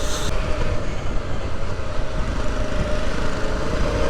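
Off-road motorcycle engine running steadily while riding, under a heavy low rumble of wind and road noise.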